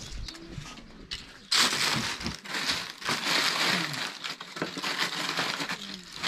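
Dry rustling and crunching of loose material handled by hand, starting suddenly about one and a half seconds in and going on as the hands keep rummaging.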